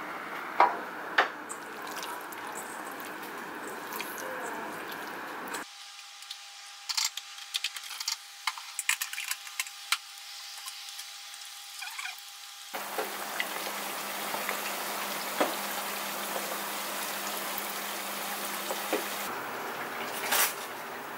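Water poured into a steel mixing bowl of chicken and starch batter, with a couple of sharp clicks about half a second and a second in. About six seconds in, chicken pieces frying in shallow oil, with scattered pops and crackles over a faint sizzle. After about thirteen seconds, a steady noise with a low hum.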